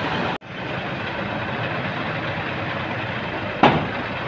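Truck engine running steadily, powering the truck-mounted crane. The sound drops out for an instant a little way in, and a single loud knock comes near the end.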